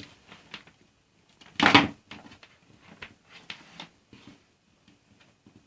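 Fumbling a vacuum cleaner's mains plug into a transformer by hand: scattered small plastic clicks and knocks, with one louder scrape-like rustle about a second and a half in.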